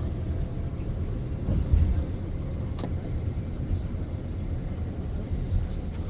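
Steady low rumble of road and engine noise heard from inside a moving vehicle on a highway, with one louder low thump a little under two seconds in.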